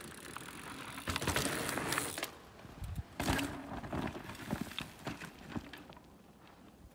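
Mountain bike riding down a steep, loose dirt slope and crashing: a rush of tyre and dirt noise, then scattered knocks and scrapes as bike and rider tumble in the dirt.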